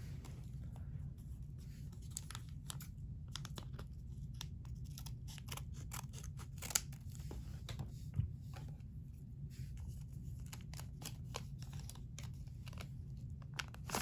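Crinkling and crackling of a metallized anti-static bag holding a RAM module as it is handled and opened. The crackles come irregularly, the loudest about seven and eight seconds in, over a low steady hum.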